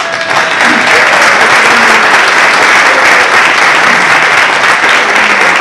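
Audience applauding, a loud dense clapping that starts suddenly and holds steady, with a few faint pitched notes underneath.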